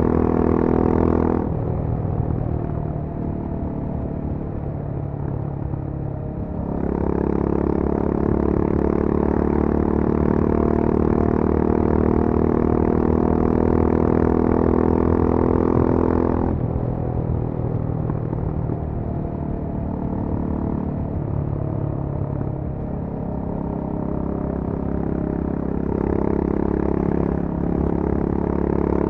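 Honda CB350 RS single-cylinder engine running through its stock exhaust, heard on board at highway speed. The exhaust note eases off about a second and a half in and comes back louder around seven seconds, under harder throttle. It eases off again around sixteen seconds and picks up once more near the end.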